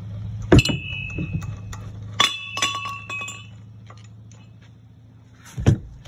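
Steel hand tools clanking and clinking against each other and against metal: a sharp ringing clank about half a second in and another about two seconds in, each ringing on for about a second, then more metallic clatter near the end.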